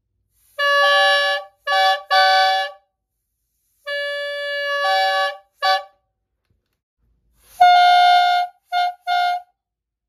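Pair of small plastic toy train air horns sounded together in short blasts, the low and high horns first, sounding D and G, with the higher note sometimes coming in a moment after the lower. About halfway through, after a pause, the medium and high horns sound together, F# and G, in one longer blast and two short ones.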